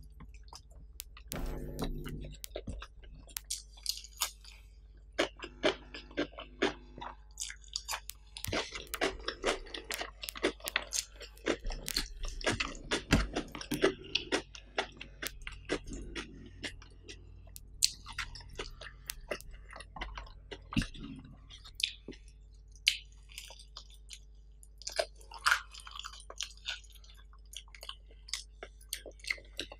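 Close-miked chewing with many sharp, irregular crunches: mouthfuls of rice, squid in chilli sambal and crispy fried sides being eaten.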